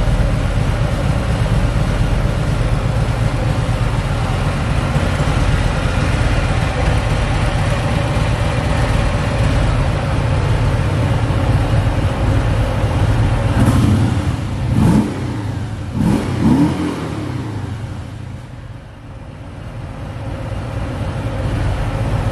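Harley-Davidson Sport Glide's 107 cubic inch Milwaukee-Eight V-twin idling in neutral through its 2-into-1 exhaust. A little past the middle there are three or four quick throttle blips, the revs rising and falling back.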